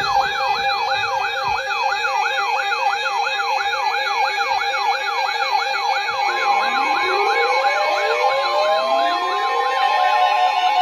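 Electronic siren warbling, its pitch sweeping up and down about three times a second over steady tones. About six seconds in, slower rising wails join it.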